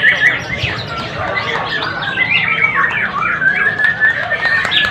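Many songbirds singing and chirping at once, their rapid whistles and trills overlapping in a dense chorus.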